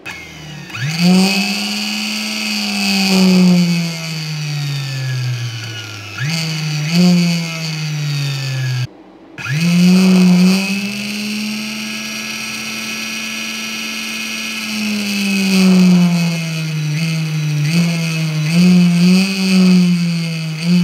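A 24-volt high-speed permanent-magnet DC motor, run without load from an arc welding machine's DC output well above its rated voltage, whines as it spins. Its pitch rises, sags and surges again several times, and it stops briefly about nine seconds in before spinning back up.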